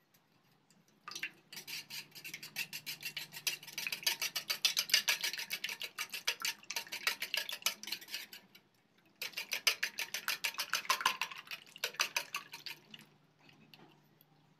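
Wire whisk beating raw eggs in a metal bowl, the wires clicking against the bowl in fast, even strokes, with a short break partway through before the beating resumes and trails off.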